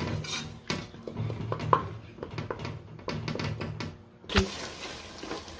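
Wooden spoon stirring and scraping a thick, softened tomato-onion masala around the bottom of an aluminium pressure cooker, in irregular knocks and scrapes, with one louder knock about four seconds in.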